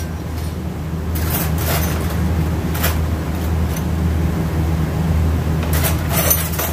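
Steady low mechanical hum of workshop machinery, with a few short metallic clinks and scrapes as an automatic-transmission clutch drum and its parts are handled on a metal workbench.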